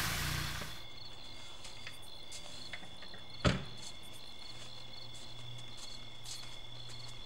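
Quiet background with a faint, steady, high-pitched chirring and a low hum, broken by one sharp click about halfway through.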